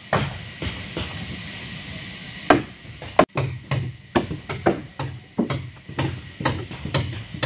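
Hammer blows on wood at a wooden boat build: two single knocks, then a steady run of strikes at about two a second.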